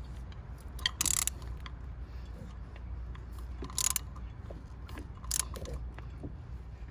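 Hand tools on metal while bolts are tightened in a car's engine bay: scattered sharp clicks with a few short bursts of mechanical ratcheting noise, over a steady low hum.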